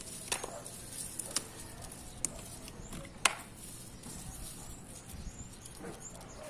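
A lemongrass stalk being pulled from its clump in a pot and stripped by hand: about four sharp snaps and crackles, the loudest a little past the middle, over a steady high hiss.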